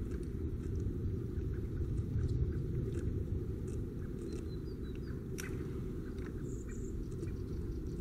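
Steady low outdoor rumble picked up by a fixed wildlife camera's microphone, with faint scattered ticks and a couple of brief, thin high chirps.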